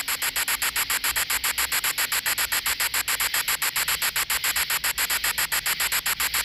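GhostTube ghost-box app playing its sweep of choppy static, hissing in even pulses about ten times a second.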